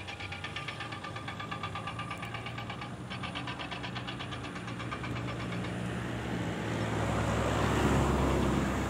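Engine running with a fast, even pulse, then a heavier engine growing louder over the last few seconds as a vehicle draws close.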